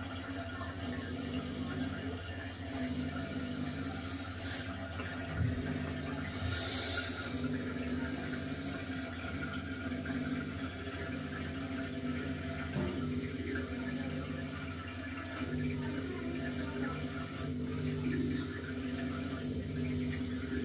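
Aquarium pump running: a steady low hum over an even wash of water noise.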